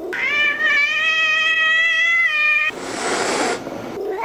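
A white cat giving one long, drawn-out meow held at a steady pitch for about two and a half seconds, followed by a short breathy hiss.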